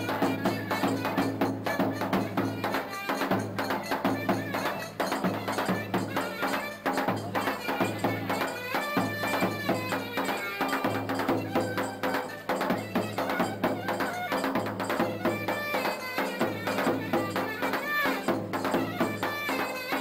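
Davul drum beating a steady, driving dance rhythm under a clarinet playing a Turkish folk melody.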